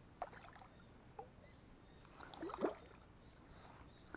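Light water splashing in a few short bursts, the loudest about two and a half seconds in.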